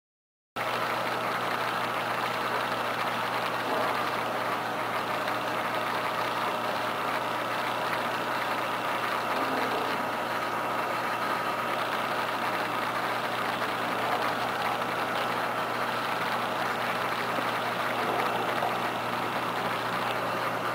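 Aquarium pumps and filtration running with a steady mechanical hum and noise, starting about half a second in.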